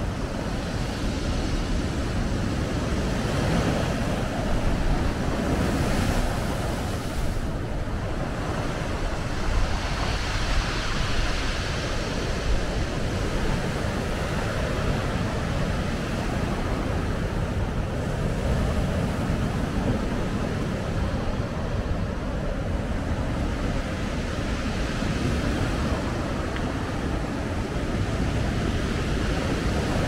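Heavy North Sea surf breaking on the shore, each wave rising as a swell of hiss for a few seconds, several times over. Strong wind buffets the microphone as a steady low rumble underneath.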